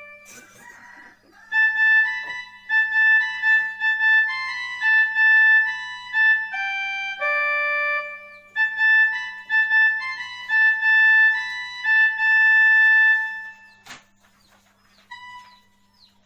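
Casio electronic keyboard played as a slow melody of held, steady notes. The melody stops about fourteen seconds in with a sharp click, followed by a few short notes.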